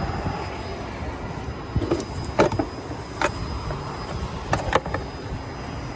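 Handling noise: about six short, sharp clicks and knocks between two and five seconds in, over steady background noise.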